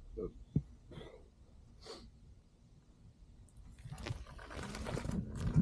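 A few faint short sounds, then from about four seconds in a rising rush of noise as a KingSong S22 electric unicycle sets off and rolls over a dirt trail strewn with dry leaves.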